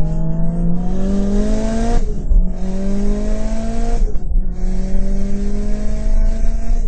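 A Mitsubishi Lancer Evolution IX's turbocharged 4G63 inline-four under hard acceleration, heard from inside the cabin. Its pitch climbs steadily, then falls sharply at two upshifts about two seconds apart before climbing again, over a constant road rumble.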